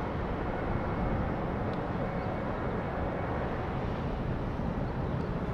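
Steady rumble of jet airliner engines running at low power during taxi, with a faint high whine over it for the first few seconds.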